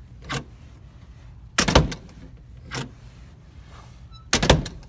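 Metal classroom door with a lever latch being opened and shut: twice a loud clatter of the door closing against its steel frame and latch, with a softer single click from the lever and latch before each.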